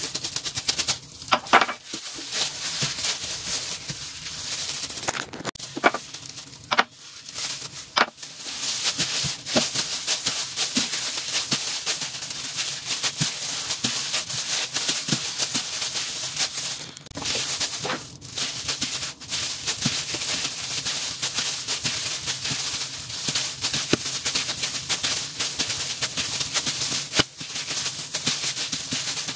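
Clear plastic food-handling gloves crinkling and rustling as hands knead and fold a raisin bread dough on a silicone mat, a dense irregular crackle with a few sharper clicks.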